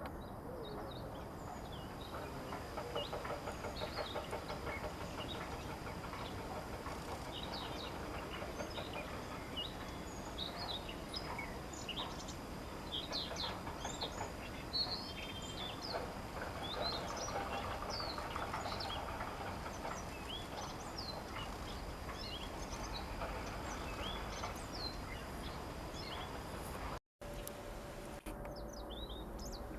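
A busy chorus of wild birdsong: many short chirps and whistles from several birds overlapping, with the sound cutting out for a moment near the end.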